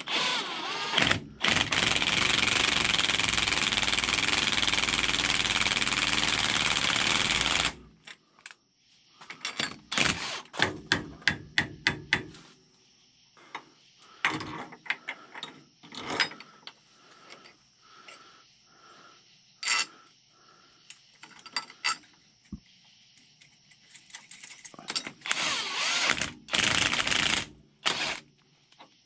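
A power tool runs steadily for about six seconds and again briefly near the end, with a quick run of metallic clicks and knocks between, from tools and parts being handled on the puller.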